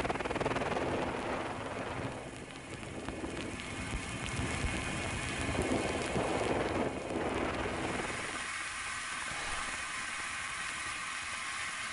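Helicopter engine and rotor noise heard from aboard the aircraft, with wind on the microphone; the sound thins out about eight seconds in.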